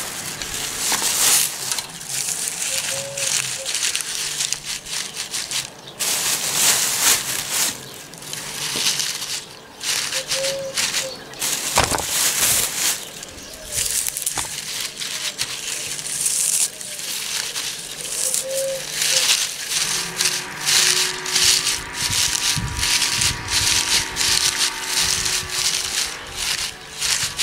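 Dry wood-wool straw being pulled apart and pressed into a nest by hand: a crackly rustling that comes and goes in uneven handfuls.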